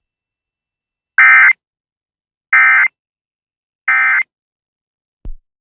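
Emergency Alert System end-of-message data bursts: three short, identical, harsh digital warbles about a second apart, marking the end of the weather radio warning. A brief click follows near the end.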